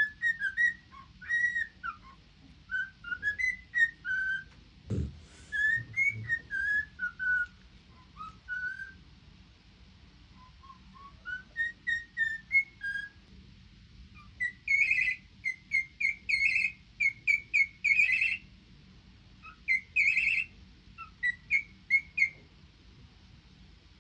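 Cockatiel whistling a long string of short, gliding notes, which turn into a quick run of repeated notes about halfway through. A single dull thump comes about five seconds in.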